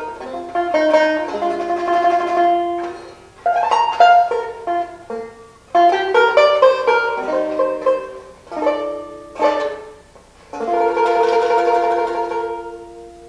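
1929 Paramount Leader tenor banjo played solo, picked chords and melody runs in short phrases. Near the end a final chord rings on and dies away.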